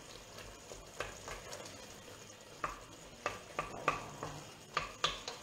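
A spoon stirring thick broccoli and skate soup in a steel pot. A few short, irregular knocks sound as it hits the pot, more often in the second half.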